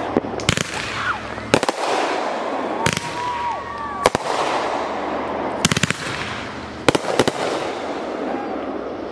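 Aerial fireworks in a grand finale: sharp bangs of shells bursting about once a second, with a quick run of several bangs about halfway through, over continuous crackling and hiss from the burning stars.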